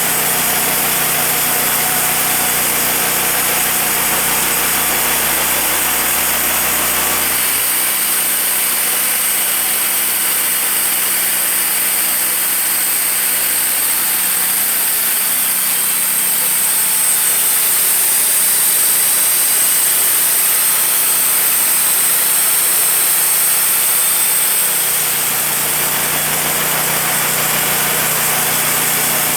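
Wood-Mizer band sawmill running steadily with its engine going; from about seven seconds in until about twenty-five seconds the deep rumble drops away and the sound gets slightly brighter, then returns.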